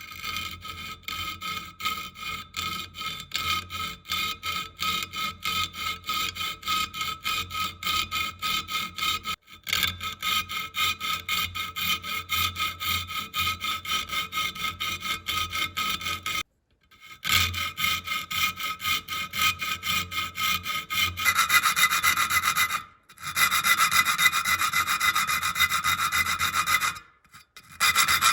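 Quick, even back-and-forth strokes of a file or abrasive rubbing on the steel blade of a rusty keyhole saw, about three or four strokes a second, with the thin blade ringing. The work pauses briefly a few times and gets louder and brighter in its last stretch.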